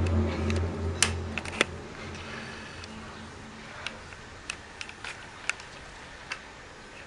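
A low droning hum that fades away over the first two seconds, followed by faint scattered clicks and ticks.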